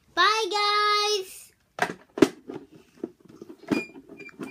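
A child's voice holds one sung note for about a second. Then comes a run of plastic clacks and knocks as the Peppa Pig toy camper van is handled and moved, with the sharpest knock about two seconds in.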